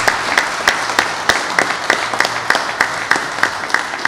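A small group applauding: many hand claps, with single sharp claps standing out above the rest.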